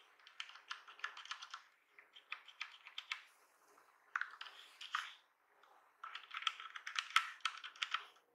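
Bare Cherry MX Red linear mechanical switches on an Asus ROG Falchion keyboard pressed in quick succession, clacking as the stems bottom out and spring back. The presses come in four rapid runs with short pauses between them.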